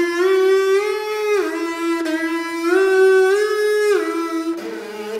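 Brass instrument playing a short phrase twice, stepping up and then back down, with a raw tone rich in overtones. Near the end it moves to different, lower notes.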